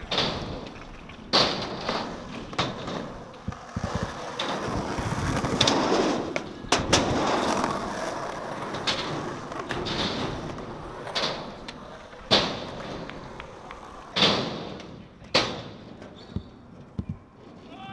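Skateboard wheels rolling on concrete, broken by sharp cracks and clacks of the board popping and landing, about eight times.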